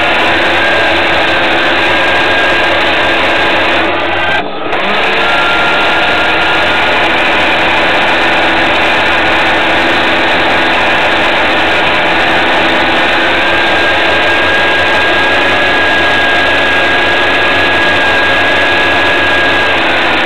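Boat motor running steadily with a high whine over a low hum, dipping briefly about four and a half seconds in.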